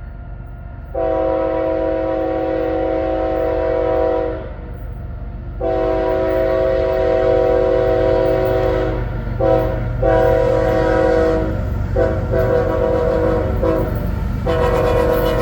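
CSX ET44AH locomotive's Nathan K5 air horn sounding a horn show: a long blast about a second in, a second long blast about five seconds in, then a string of shorter, broken blasts and another long one near the end. The steady low rumble of the diesel locomotives pulling hard runs beneath.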